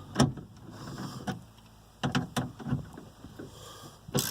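Irregular sharp clicks and light metallic knocks from a hand wrench snugging up 10 mm bolts on a minivan sliding door's handle assembly. The loudest click comes near the end.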